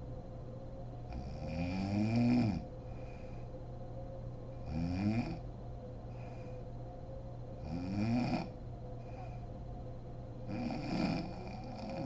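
A sleeping woman snoring: four snores about three seconds apart, each sliding up in pitch, the first one the loudest.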